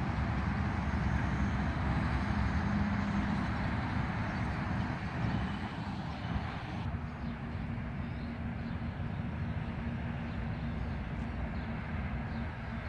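Road traffic going by: steady rumble of passing cars and a minibus, their engines and tyres on the road. About seven seconds in the sound abruptly turns duller, with a steady low hum from then on.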